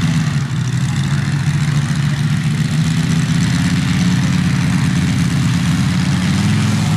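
Radial engine of a giant-scale RC F4U Corsair model with a Moki radial idling steadily, its pitch rising slightly about six seconds in.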